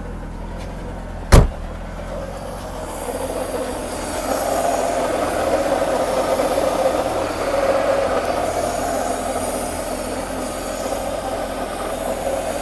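Mercedes-Benz W126 300SEL's straight-six engine idling on its first cold start after about seven years standing, held at a fast idle of about 1000 rpm by its cold-start idle boost. A single sharp thump comes about a second and a half in, and the engine sound grows louder a few seconds in.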